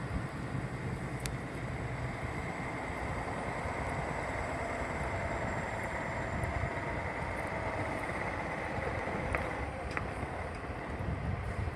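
Diesel engine of a 2006 Peterbilt 379 semi tractor running at low revs as the bobtail truck moves slowly, a steady low rumble.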